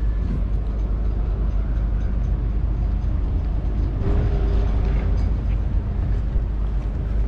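Wind buffeting the microphone, giving a steady low rumble that rises and falls unevenly.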